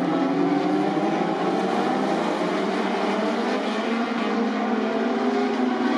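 A pack of Moto2 race bikes, Triumph 765 cc three-cylinder engines, running hard at speed, with several engine notes overlapping.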